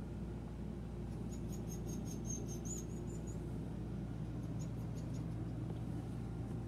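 Steady low machine hum in the motorhome's interior, with faint high-pitched squeaks for a couple of seconds about one second in and a few light ticks later.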